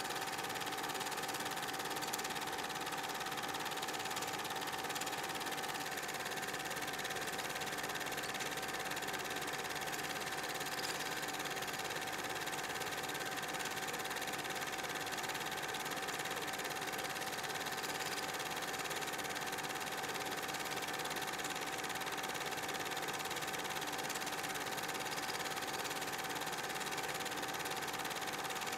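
Super 8 film projector running: a steady mechanical whirr with a constant hum tone, unchanged through the whole stretch.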